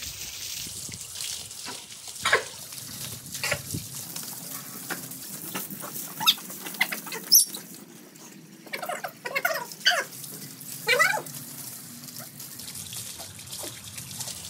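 Water spraying from a garden hose onto a dog's coat, then a dog whining and yelping in short cries that slide up and down in pitch, several in quick succession around the middle, while it is being bathed.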